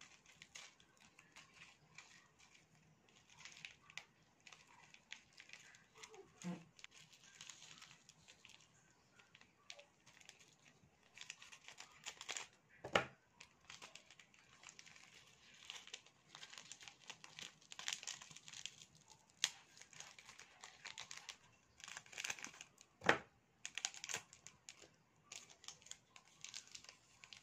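Small plastic seasoning sachets crinkling on and off as they are squeezed and shaken out by hand, with two sharper clicks, one about halfway through and one near the end.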